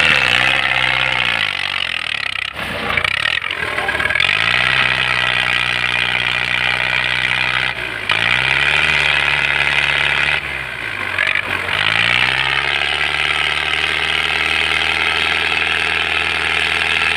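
Diesel tractor engine labouring as it pulls a heavily loaded sugarcane trailer through a field. Its revs sag and pick back up several times, and it runs steadily toward the end.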